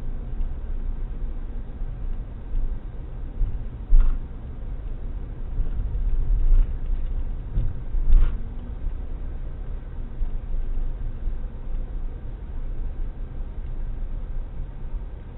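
Steady low rumble of a car driving, heard from inside, with a few short knocks around 4 and 8 seconds in.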